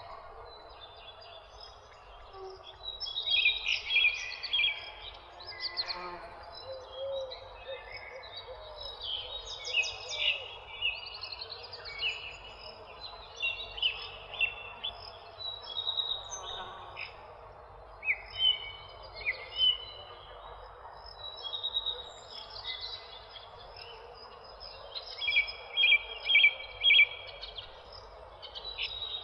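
Birds chirping and trilling, many short calls overlapping throughout, with louder bursts of rapid chirps a few seconds in and again near the end, over a steady low background hiss.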